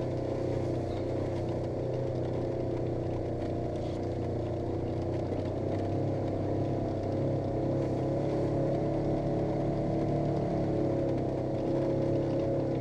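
Polaris RZR 900 S side-by-side's twin-cylinder engine running steadily at a nearly even pitch.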